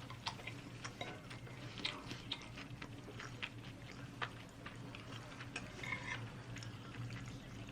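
Someone eating a rice bowl: scattered soft clicks of a spoon or chopsticks against the bowl and faint chewing, over a low steady hum.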